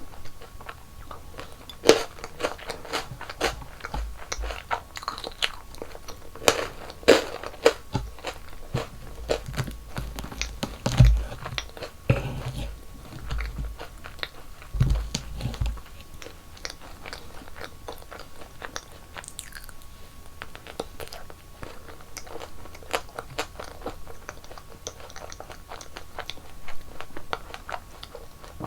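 Close-miked eating: a person biting and chewing sweets, with a close run of sharp, crisp crunches and a few low thuds in the first half.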